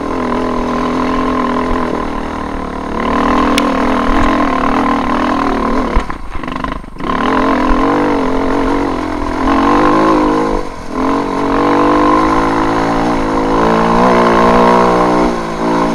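KTM off-road motorcycle engine under way, its pitch rising and falling with the throttle. It drops off briefly about six seconds in and again near eleven seconds, then picks back up.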